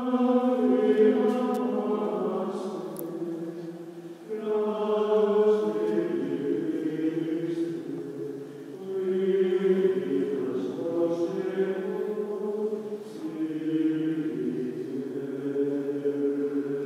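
Choir singing a slow sacred chant in long held notes, in phrases that swell and ease off about every four to five seconds.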